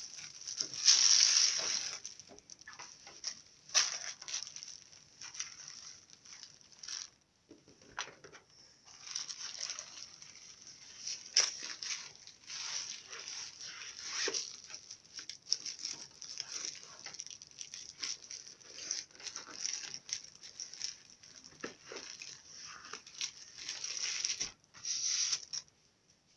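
Thin clear plastic packaging bag crinkling and rustling in irregular bursts as a laptop sleeve is handled and pulled out of it.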